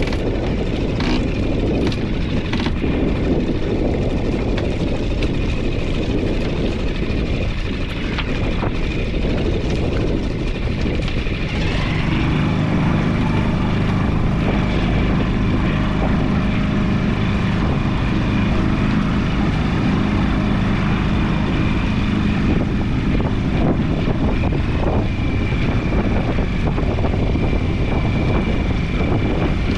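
A small outboard motor runs steadily. About twelve seconds in its sound grows heavier and more even as it is throttled up and the boat gets under way under power.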